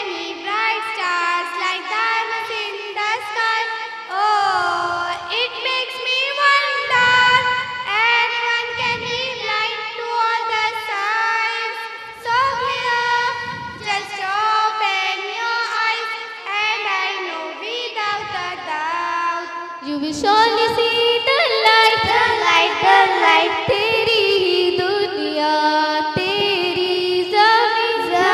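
Children's voices singing a devotional Urdu song with musical accompaniment, the melody carrying on continuously and growing fuller about two-thirds of the way through.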